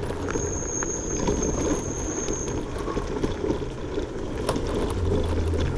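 Langfeite L8S electric scooter ridden off-road: a steady low rumble of wind and ground noise with scattered rattles and clicks, and a thin high whistle for about two seconds near the start.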